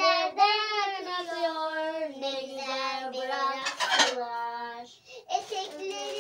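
A high voice singing a slow song in long held notes, with a brief rustling noise about four seconds in.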